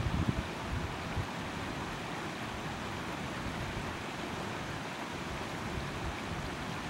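Steady rush of water running over the rocks of a shallow stream, with wind buffeting the microphone in the first half second.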